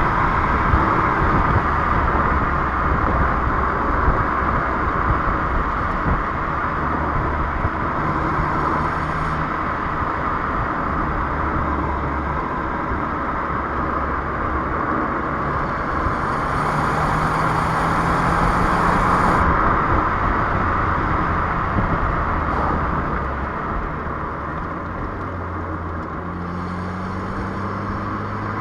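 Renault Clio 1.3 TCe 130's turbocharged four-cylinder petrol engine running while the car is driven, under steady road and tyre noise. The engine note rises gently about halfway through and again near the end.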